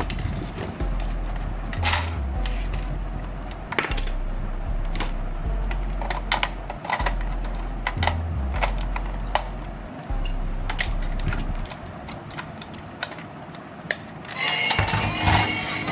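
Scattered sharp clicks and taps over a low, steady background bass line that fades out about three quarters of the way through; pitched music comes in near the end.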